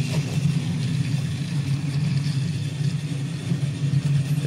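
The small battery-powered motor of a TrackMaster toy train running steadily, a constant hum.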